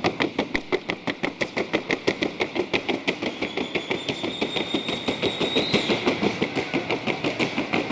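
Hooves of a Colombian trocha mare striking a hard sounding board in the quick, even rhythm of the trocha gait, about seven hoofbeats a second.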